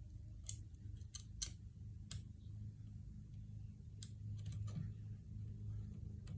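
Scattered light clicks and taps, about seven, irregularly spaced, with the loudest about one and a half seconds in, over a low steady hum.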